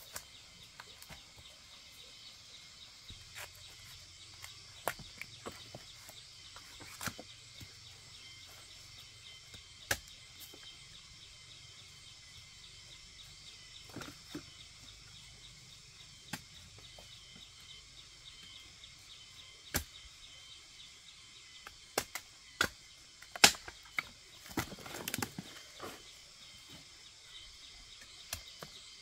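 Outdoor rural ambience: a steady high-pitched hiss with scattered sharp clicks and knocks, which come thickest a little past two-thirds of the way through.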